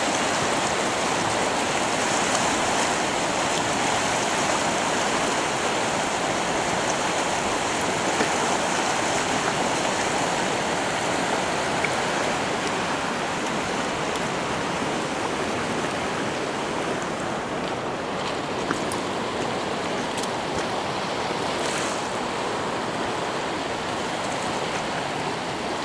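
The Klutina River's current rushing steadily past the bank.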